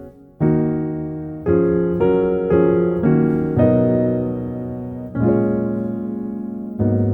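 Background piano music: slow chords struck every half second to a second and a half, each fading away.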